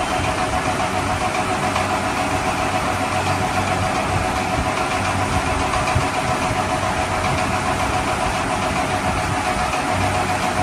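Steady, unbroken engine-like running drone with a constant mid-pitched tone over a hiss.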